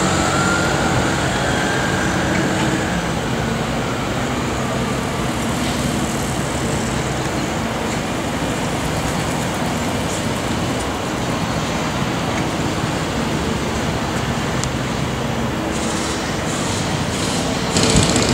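Steady outdoor traffic and construction-site noise, a continuous rumble with a faint rising whine in the first few seconds, growing louder near the end.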